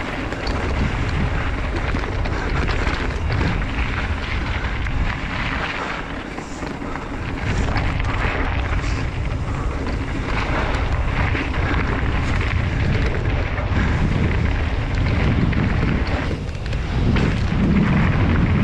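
Wind buffeting the rider-mounted microphone over the rumble and rattle of a mountain bike's tyres and frame running fast down a dirt trail.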